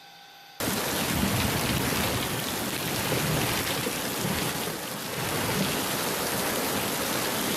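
Loud, steady rush of water cutting in suddenly about half a second in, after a faint hum.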